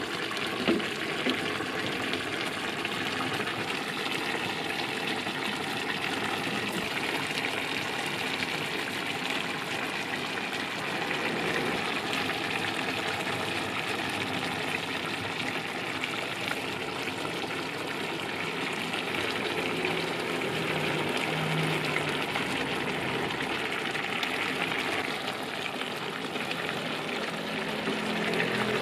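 Chunks of pork simmering in a brown braising sauce in a pan: a steady bubbling and sizzling.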